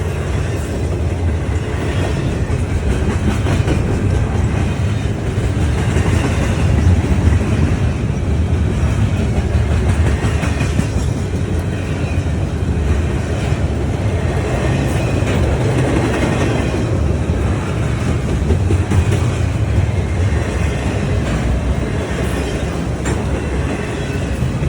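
Train rolling past, a steady rumble of railroad cars with wheels clacking over the rail joints.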